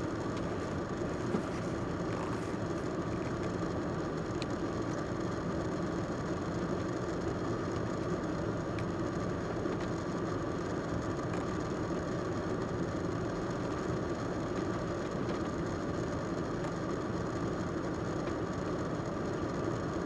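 Steady street noise from cars running slowly through standing floodwater, a constant wash of engine and water sound with a faint steady hum. A single brief click about a second in.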